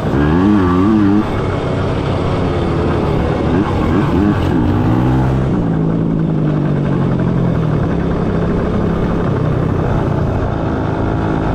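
Small dirt bike engine running while riding. Its pitch rises and falls quickly with the throttle for the first few seconds, then holds steady from about halfway through.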